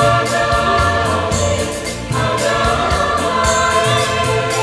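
Mixed choir singing in harmony, holding long chords, with a new phrase starting about two seconds in.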